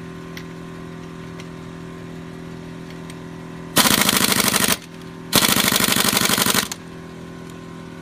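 Pneumatic impact wrench hammering on a wheel's lug nut in two bursts, the first about a second long and the second a little longer. Behind it, a 12-volt onboard air compressor hums steadily, still building pressure for the wrench.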